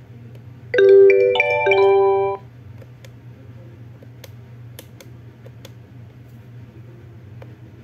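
A short preloaded ringtone played through a Huawei ETS3125i phone's speaker: a quick chime-like melody of about four notes lasting about a second and a half. A few faint clicks follow over a steady low hum.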